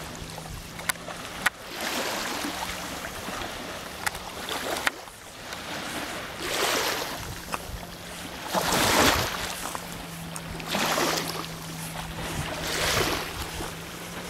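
River water sloshing and lapping around two swimming dogs, rising and falling in swells every two seconds or so, with a few sharp clicks in the first few seconds.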